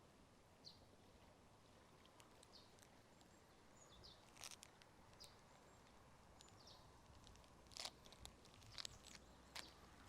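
Quiet outdoor ambience with faint, scattered bird chirps and a few soft footsteps.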